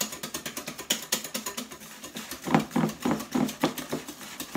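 Metal balloon whisk beating eggs and sugar by hand in a glass bowl, its wires clicking against the glass in a quick, even rhythm of about six strokes a second; the strokes turn heavier about halfway through as the mix is beaten towards foamy.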